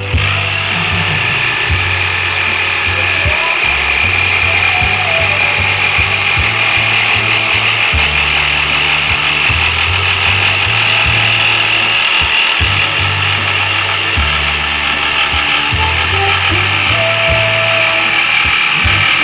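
Electric jigsaw switching on and running steadily without a break.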